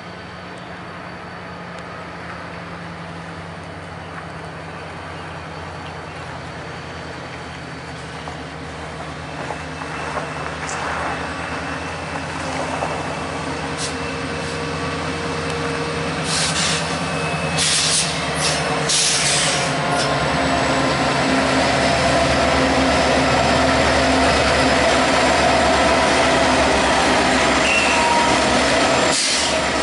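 Canadian Pacific diesel locomotives leading a freight train approach and pass close by, the engines running steadily and getting louder as they near. About two-thirds of the way through, a few sharp high-pitched squeals come from the train.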